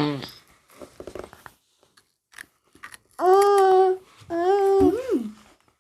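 A child's voice holding two loud, steady sung or hummed 'aah' notes about three seconds in, the second ending with a quick swoop up and down in pitch; before them, a few faint crinkles and clicks.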